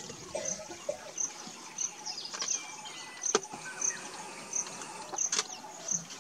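Birds calling, with one short, high chirp repeating steadily every second or so among other whistled calls. Two sharp clicks, one about halfway through and one near the end.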